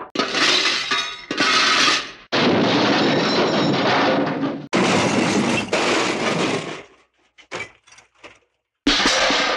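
Hanna-Barbera cartoon crash sound effects played one after another: loud smashing and shattering, glass breaking, in four separate crashes, then a few faint tinkles of falling pieces, then another crash starting near the end.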